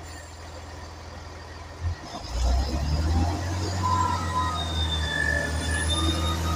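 Chiltern Railways Class 165 Networker Turbo diesel multiple unit pulling away from a station platform. A steady low hum gives way, after a thump about two seconds in, to the louder note of the diesel engines under power, with a high whine rising in pitch as the train gathers speed.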